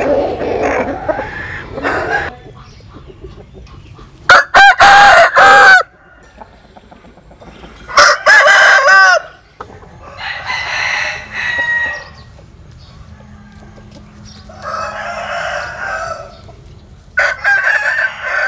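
Roosters crowing five times, each crow one to two seconds long; the crows about four and eight seconds in are close and very loud, and the others are fainter. The first two seconds hold a rough, noisy sound.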